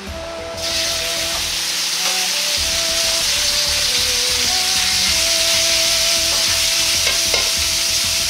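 Ground pork dropped into hot oil in a Chinese wok, sizzling. It starts suddenly about half a second in and stays steady as the meat is stir-fried with a wok ladle, with a couple of faint ladle clicks near the end.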